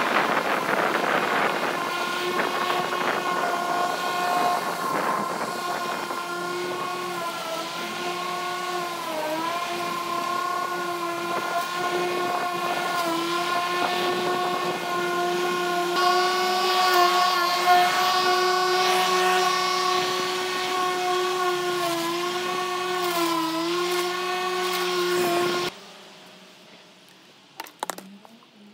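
Corded electric rotary lawn mower running with a steady motor whine that dips briefly in pitch several times as it bites into the grass. The whine stops suddenly near the end, leaving a few faint clicks.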